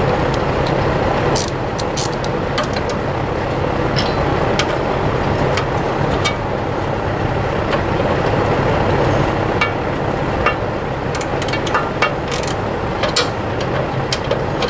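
Hand tools on steel bolts: a wrench and socket clicking and clinking in short irregular bursts as the hay rake's bearing-flange bolts are worked loose. A steady low drone runs underneath.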